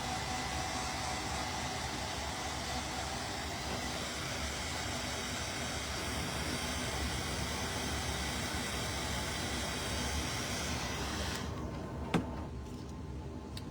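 Steady rush of blowing air with a faint hum, as from a small electric blower, cutting off abruptly about eleven seconds in, followed by a single sharp click.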